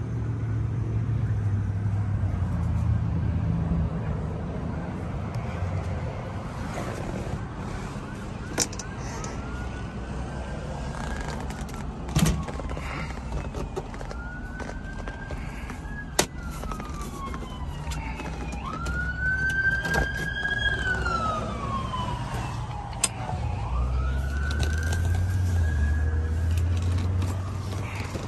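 A siren wailing, its pitch rising and then slowly falling, over and over every few seconds. Under it is a low rumble, and a few sharp clicks come through.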